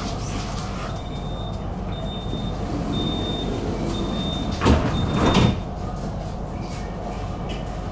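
Tram door-closing warning: five short high beeps about once a second, then the doors slide shut with two loud thuds about five seconds in, over the steady hum of the tram waiting at the stop.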